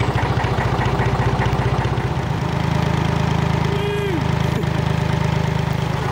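Narrowboat diesel engine running steadily, with a regular chugging beat.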